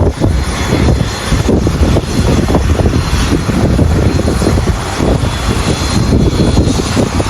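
Tour helicopter running, a steady loud engine and rotor noise.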